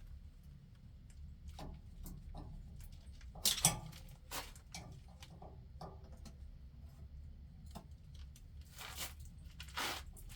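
Scattered light clicks and knocks of hand tools and parts being handled, with a louder clatter about three and a half seconds in and another near the end, over a steady low hum.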